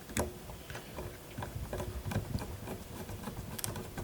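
Light, irregular clicks and taps of small computer parts, screws and a screwdriver being handled during a mini-PC case assembly, with a sharper click just after the start and another near the end.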